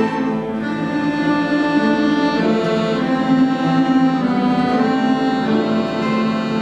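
Orchestra of Russian folk instruments playing a melody of held notes over a steady accompaniment.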